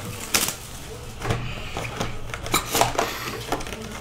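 Plastic shrink-wrap and foil trading-card packs crinkling and rustling as a sealed hobby box is unwrapped by hand, with irregular sharp crackles and a few louder snaps.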